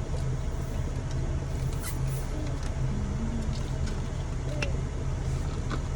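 Car engine idling, a steady low hum heard from inside the cabin, with a few faint clicks over it.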